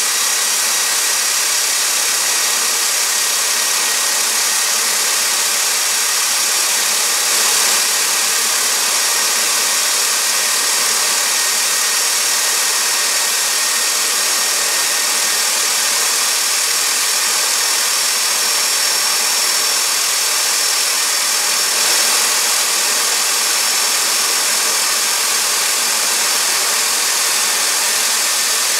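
Fairchild J44 turbojet engine running steadily on a test stand: a loud, even rush of jet noise with a thin high whine that drifts slightly lower.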